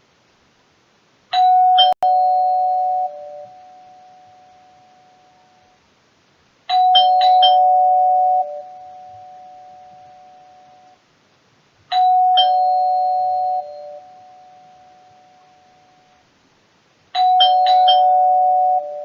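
Doorbell chiming ding-dong four times, about five seconds apart: each ring is a higher tone followed by a lower one that rings on and slowly fades.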